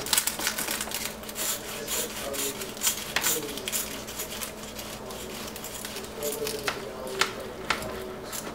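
Meat cleaver slicing through a baked, phyllo-wrapped beef Wellington: the crisp phyllo layers crackle and crunch in a scatter of sharp clicks.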